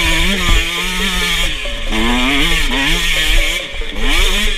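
Enduro dirt bike engine revving under load on a steep hill climb, its pitch rising and falling repeatedly as the throttle is worked, with a hiss of wind and dirt behind it.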